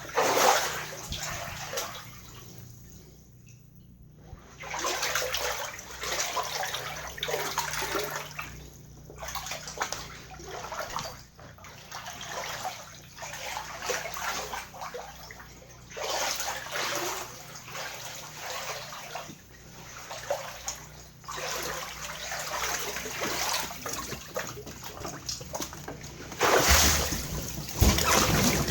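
Floodwater sloshing and splashing in irregular surges every second or two, with the loudest splashes near the end.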